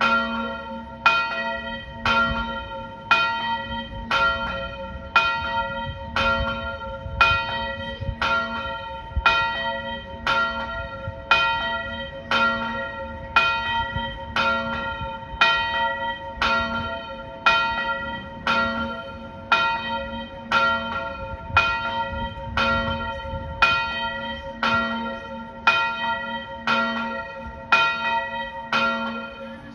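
The largest church bell, a B-flat bell, tolled with single evenly spaced strokes about once a second, each stroke ringing on into the next.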